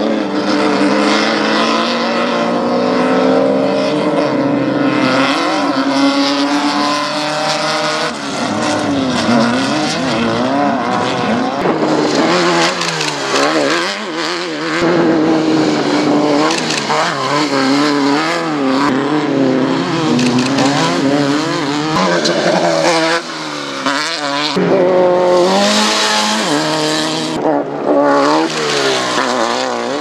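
Off-road race buggies running flat out on a dirt course, their engines revving up and down through the gears, at times two engines at once. A burst of hiss joins the engines near the end.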